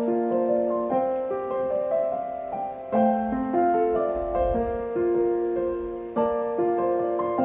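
Gentle piano background music: a slow melody over chords.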